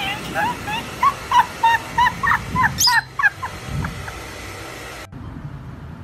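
Peach-faced lovebird chirping: a quick run of short, sharp chirps, about three a second, that stops about three seconds in.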